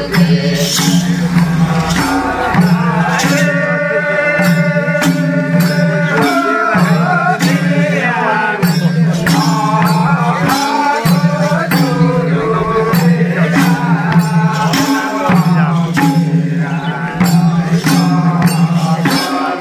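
Nepali Bhailo folk music: singing over a steady run of percussion strikes and a sustained low note that drops out briefly every few seconds.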